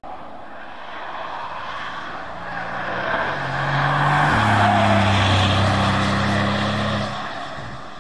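Prototype third-generation Porsche Panamera driving past at track speed: a muted engine and exhaust note with tyre and wind rush swells as it approaches, drops in pitch about four seconds in, then fades away.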